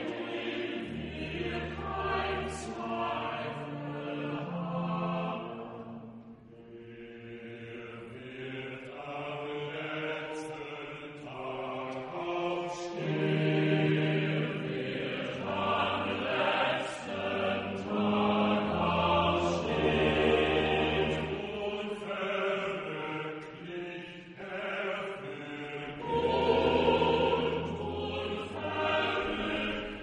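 Choral music: voices chanting in long held notes that shift every few seconds over low sustained tones, swelling louder in the second half.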